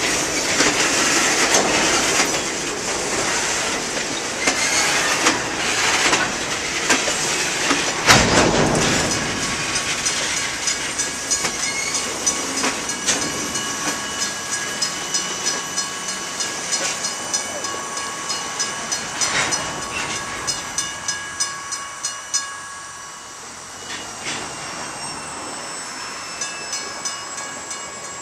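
Loaded stone hopper cars of a freight train rolling past, their wheels clacking over rail joints in a regular rhythm of about two clicks a second, with steady high squealing tones from the wheels. One loud knock comes about eight seconds in, and the sound fades as the last cars go by near the end.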